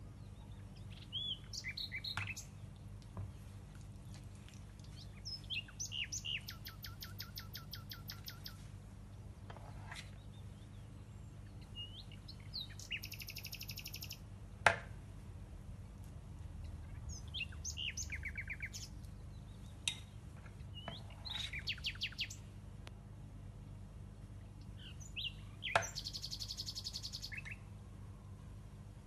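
Small songbirds chirping and singing in the background, with several fast trills of rapidly repeated high notes. About halfway through, a metal spoon clinks sharply against a glass dessert cup, with a lighter clink later.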